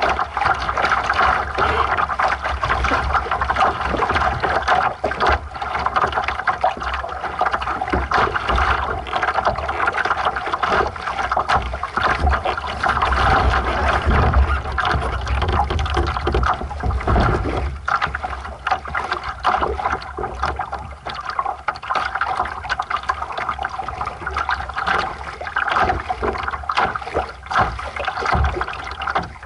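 Water rushing and splashing along the hull of a small sailing dinghy under way, with a steady, uneven rumble of wind on the microphone.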